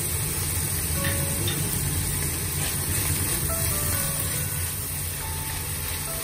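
Ground pork and chopped green beans sizzling in a wok while being stirred with wooden chopsticks, over a steady low hum, with soft background music.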